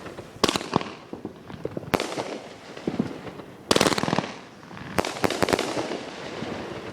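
Consumer fireworks going off: sharp bangs at irregular intervals, with a quick run of rapid pops about four seconds in and a few more bangs about a second later.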